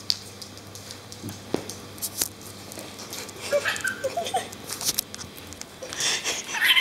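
Scattered light taps and clicks of animal claws on a tiled floor, with a few short squeaky calls about halfway through. Laughter starts to build near the end.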